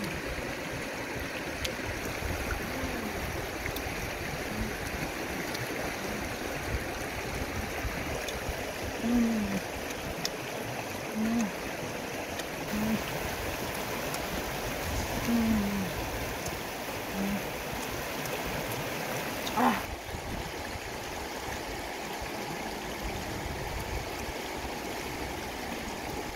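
Shallow river rushing steadily over rocks and stones. Over it come a few short, low voice-like hums, between about nine and eighteen seconds in, and a sharp click about twenty seconds in.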